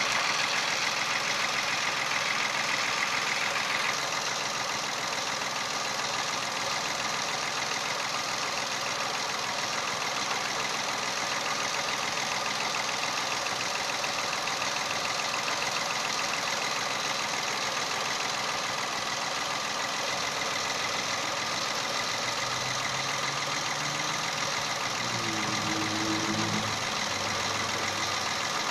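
Peugeot 107's 1.0-litre three-cylinder engine idling steadily, with a weird noise over it that is put down to a failing water pump. A higher whine is stronger for about the first four seconds, then eases.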